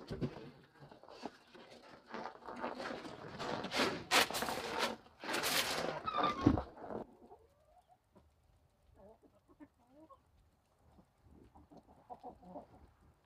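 Chickens in a backyard flock clucking low and softly, clearest in the quieter second half. Loud bursts of rustling noise dominate the first half or so.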